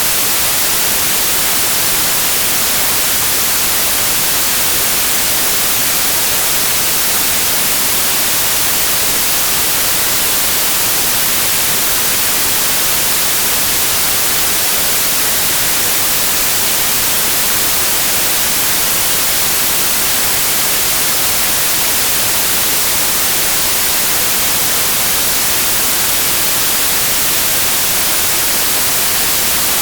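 Generated white noise for tinnitus masking: a loud, steady, even hiss, strongest in the treble, with no change.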